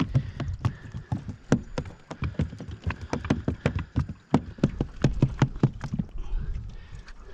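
Freshly landed queenfish flapping on the carpeted deck of an aluminium boat: a quick, irregular run of knocks and slaps, several a second.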